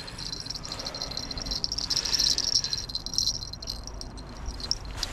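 Fishing reel being cranked to bring the line in after a suspected bite: a fast, high-pitched ticking whir that fades and stops shortly before the end.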